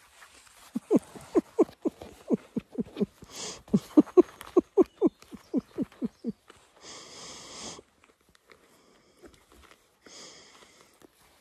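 Young puppy giving a rapid run of short squeaky yelps, each dropping in pitch, about four a second for several seconds. Two brief breathy noises follow later.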